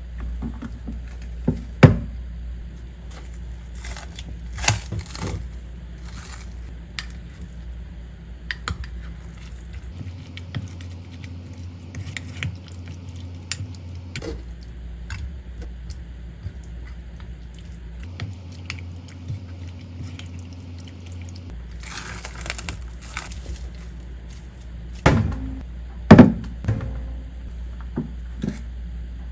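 Kitchen handling sounds: scattered clinks and knocks of dishes and utensils over a steady low hum, with the loudest knocks about two seconds in and near the end.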